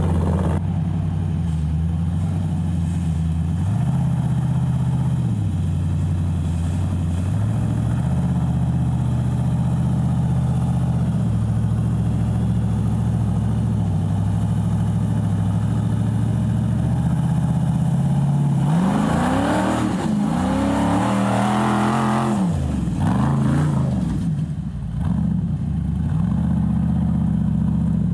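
Rock buggy's engine running steadily at low revs, shifting pitch slightly now and then. About two-thirds of the way through it is revved several times in quick rising and falling sweeps, then settles back to a steady run.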